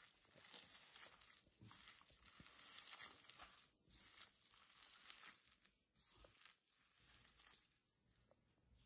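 Faint, irregular sounds of hands kneading chopped spinach into a floury dough on a marble board.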